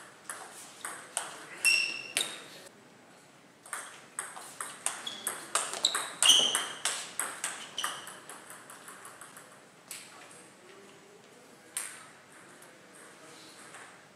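Table tennis ball striking rubber paddles and the tabletop in quick back-and-forth rallies, with a ringing ping on some hits; two runs of rapid strikes, then only a few single clicks later.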